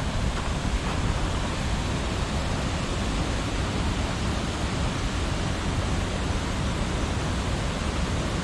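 Waterfall water rushing steadily, an unbroken even hiss.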